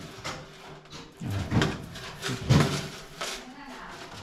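Steel wire fishing keeper basket and its netting rattling and rustling as it is handled and pushed back onto a shelf among other wire traps, in several short bursts.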